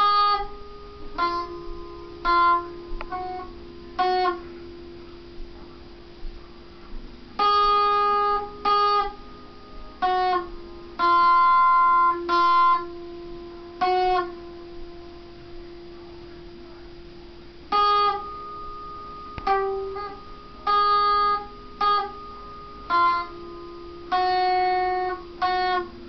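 Acoustic guitar played slowly and unevenly: separate plucked notes and small chords with pauses between them, some held and ringing for a second or two.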